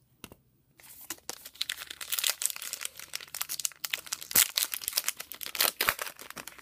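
Trading-card pack wrapper being torn open and crinkled by hand, a dense crackle with a few sharper snaps.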